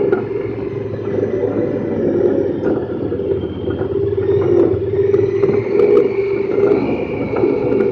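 Honda Pioneer 1000-5 side-by-side's twin-cylinder engine and drivetrain running steadily while driving on a gravel trail, heard from inside the cab: a constant drone with a faint high whine over it.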